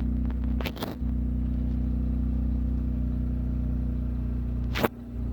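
Steady low mechanical hum with an even drone. A short clatter comes about a second in, and a sharp click near the end.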